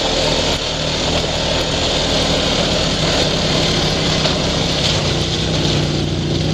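ATV engine running steadily while riding along a dirt trail, over a steady rush of wind and trail noise.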